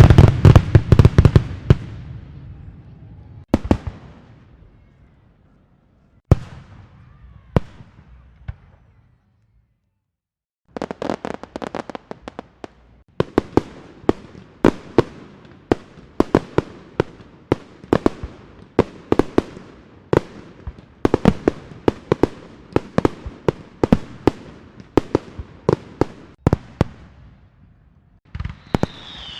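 Fireworks: a loud bang fading away, a few scattered single bangs, then after a short pause a long rapid run of sharp pops, several a second, like a string of firecrackers.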